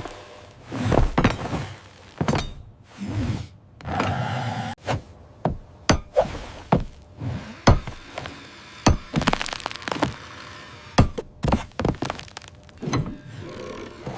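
A series of irregular heavy thuds and sharp knocks, a dozen or more, some with a brief crack or ring after them, as of something being struck and broken.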